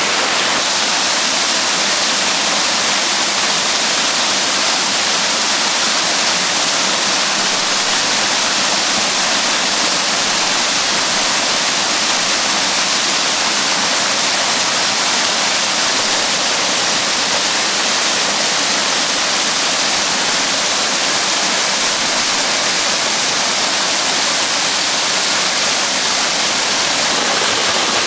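Small waterfall running full after heavy rain, pouring into a loch: a steady, loud rush of falling water, mostly hiss with little low rumble.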